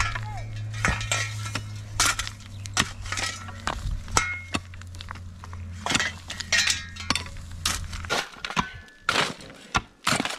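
Metal pots and dishes clinking and knocking as they are handled, a string of sharp strikes, many with a short ring. A steady low hum runs under them and stops about eight seconds in.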